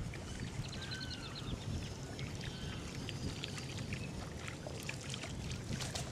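Marsh birds calling: a couple of short arching whistled notes and a run of high chirps about a second in, over a steady low hum, with scattered light clicks later on.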